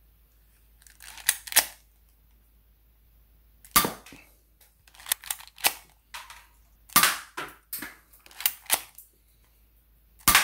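Monica Beretta Pocketmaster spring-powered (air-cocking) airsoft pistol being cocked and fired at a target: about a dozen sharp clacks in pairs and small clusters, the slide being racked and shots going off one after another.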